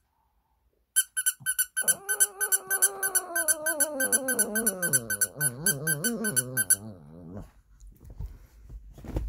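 A squeaky plush carrot toy gives a quick, even run of high squeaks, about four or five a second, for around six seconds. A moment after it starts, a Shih Tzu joins in with one long, wavering howl that slides down in pitch and trails off just after the squeaks stop.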